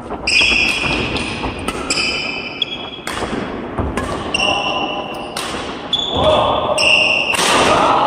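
Badminton doubles rally on an indoor court: rackets hit the shuttlecock with sharp smacks, and shoes squeak briefly on the court floor between shots. Voices rise near the end as the rally stops.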